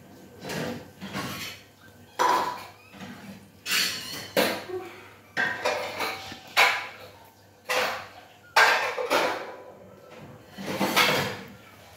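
Metal wire cage clanking and rattling in irregular sudden hits, about a dozen, as kittens wrestle against its bars.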